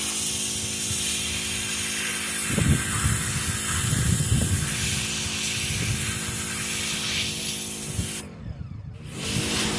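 Pressure washer running with a steady motor hum under the hiss of its water jet. The spray cuts off for under a second near the end, then starts again.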